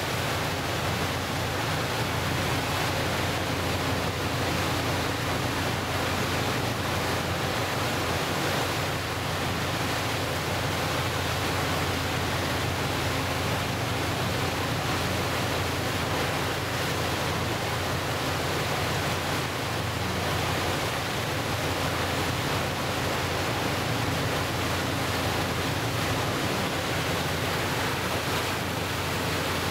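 Steady rush of churning water in the wake of the passenger motor vessel M/S Ramsö under way, over a low steady hum from the boat's engine, with wind on the microphone.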